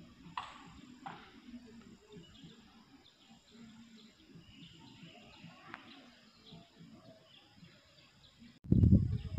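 Faint outdoor ambience with scattered short bird chirps. Near the end, a much louder low rushing noise starts abruptly.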